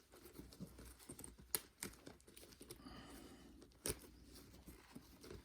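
Faint handling sounds of a canvas bimini top while a new zipper slider is run along the zipper to test it: a soft rasp in the middle and a few light clicks.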